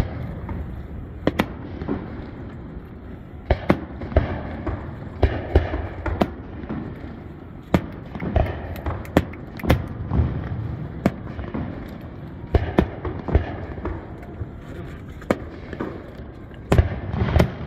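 Aerial fireworks display: shells launching and bursting in a rapid, irregular string of sharp bangs, bunched in several clusters.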